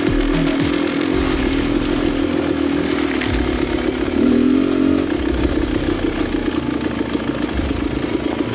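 Two-stroke dirt bike engine running under throttle on a rocky trail, revving up briefly about four seconds in, with short knocks and clatter from the bike over the rocks.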